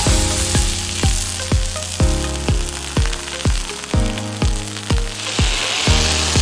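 Background music with a steady beat of about two strikes a second, over a steady hiss of detergent foam spraying from a foam unit's nozzle onto glass. The foam is at a low air setting, giving a runny foam.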